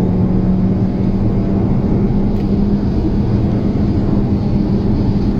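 Car engine hum and road and wind rumble heard inside the cabin while driving at high speed; the engine note edges up slightly at first, then holds steady.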